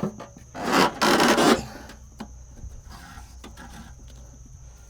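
Rope rasping against wood as it is pulled tight and worked through a knot on a bundle of firewood: two loud scraping pulls about a second in, then quieter scrapes.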